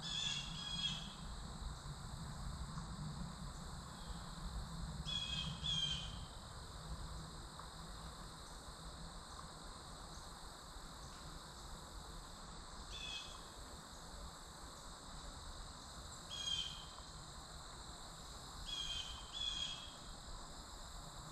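A steady, high insect drone runs throughout. A short bird call, often given twice in quick succession, comes every few seconds, with a faint low rumble under the first few seconds.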